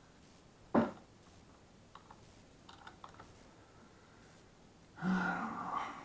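A quiet room with one short, sharp sound about a second in, a few faint computer-mouse clicks in the middle, and a man's brief murmured voice near the end.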